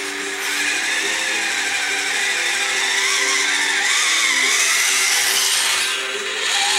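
Small electric drive motor and gears of a radio-controlled Tonka dump truck whining as the truck drives off, the pitch wavering with the throttle.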